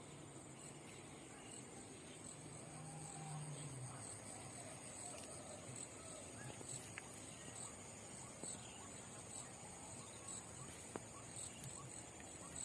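Faint high-pitched insect chirping, an even pulsing trill that keeps on steadily, with a low hum underneath for the first few seconds and a couple of small clicks.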